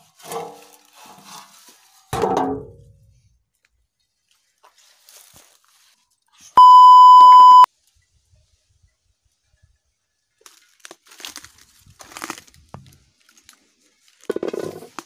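A loud, steady electronic beep lasting about a second, a little past the middle, like an edited-in bleep tone. Brief scattered rustles and knocks come before and after it.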